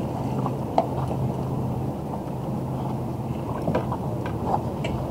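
A boat motor running steadily with a low hum, with a few light clicks and knocks of gear in the boat.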